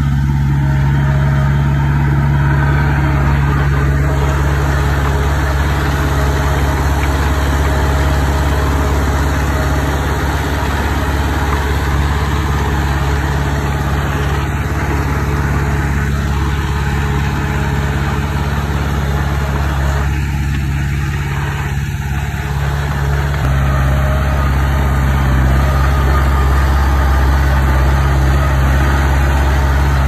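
Komatsu D20P bulldozer's diesel engine running steadily, with its low note shifting about two-thirds of the way through.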